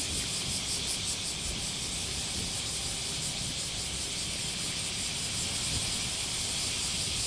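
JR Shikoku 2000-series diesel railcars standing with their engines running, a low rumble, under a louder steady high hiss with a fast, even flutter.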